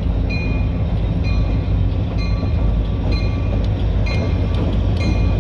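Escanaba & Lake Superior freight train rolling past with a steady low rumble, while a railroad crossing bell dings over and over.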